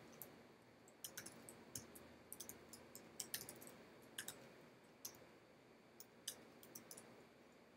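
Faint computer keyboard typing: scattered, irregular keystroke clicks.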